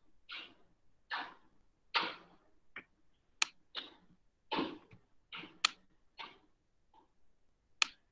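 A computer mouse used to hand-write on a screen whiteboard: short, soft scrapes as it slides, about one a second, and three sharp clicks of its button.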